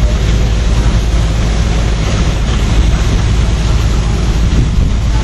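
Wind buffeting the microphone: a steady, loud, low rumble with hiss over it.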